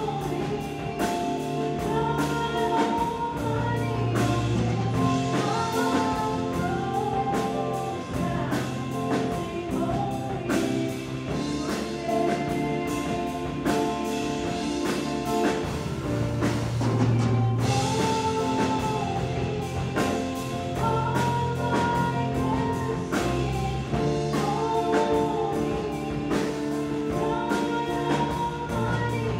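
Live worship band playing a Christian worship song, with drums, sustained bass notes and a sung melody over them.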